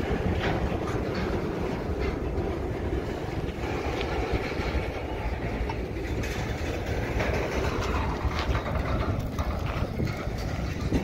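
BNSF covered hopper cars of a freight train rolling slowly past: steel wheels rumbling on the rails, with scattered clicks and knocks from the wheels and car bodies.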